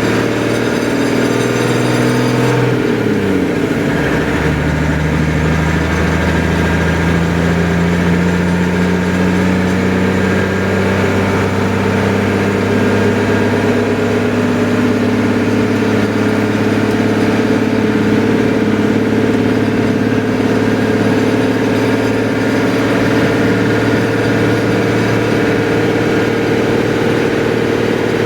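An engine running steadily; its revs drop sharply about three seconds in, and it then keeps running at a lower, even speed.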